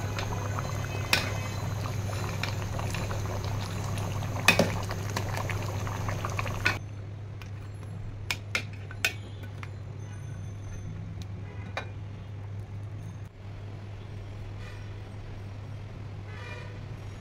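Thick curry bubbling at a hard boil in a metal pot, with a metal ladle clicking against the pot as it is stirred, over a steady low hum. About seven seconds in it turns suddenly quieter, with a few more clicks of the ladle.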